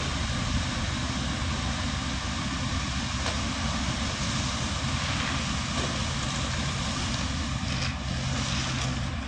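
Concrete truck's diesel engine running steadily: an even mechanical drone with a low engine hum under it.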